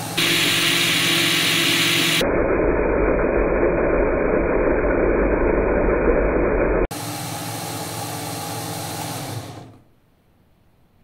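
Several small LEGO Power Functions electric motors and their red copies running without load, a steady whirring with a hum. A louder, deeper stretch sits in the middle, and the sound fades out about nine and a half seconds in.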